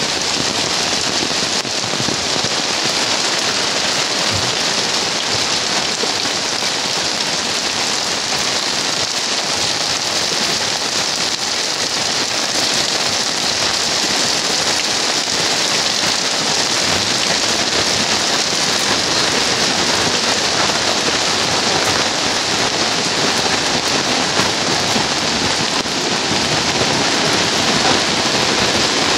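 Heavy rain falling steadily: a dense, even hiss of rain.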